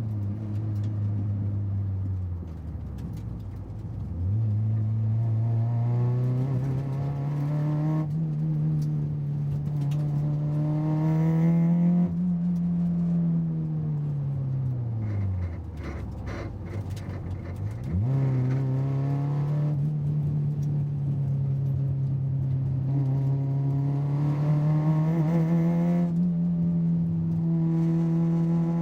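Car engine running while driving, its pitch falling twice as the car slows and then climbing again under acceleration. A few faint clicks come as it slows about halfway through.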